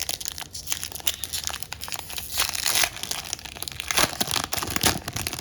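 Wrapper of a Panini Donruss Elite trading card pack being torn open and crinkled by hand: a dense run of crackles and rips, loudest about halfway through and again near the end.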